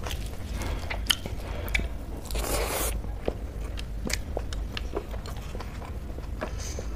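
Close-up chewing with wet mouth smacks and clicks, while fingers scrape and gather soft scrambled soy paneer and rice on a metal plate; one longer scraping rustle comes near the middle.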